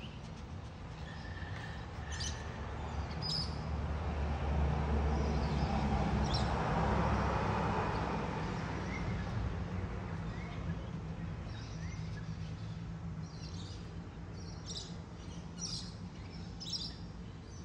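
Small birds chirping in short, scattered high calls, more often in the last few seconds, over outdoor background noise that swells to a broad rushing sound and fades again through the middle.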